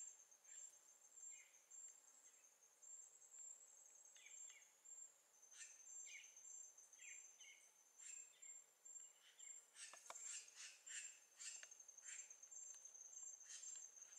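Faint natural ambience: a high, steady pulsing insect trill, with scattered short bird chirps that come more often in the second half.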